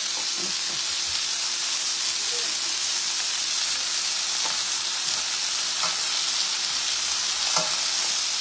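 Chicken wings sizzling in a little olive oil in a frying pan, a steady frying hiss, as metal tongs turn them. A few light clicks of the tongs against the pan, the sharpest near the end.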